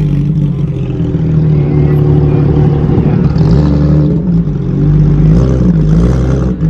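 Car engine running close by, loud and steady, its pitch dropping and rising a few times as the revs change.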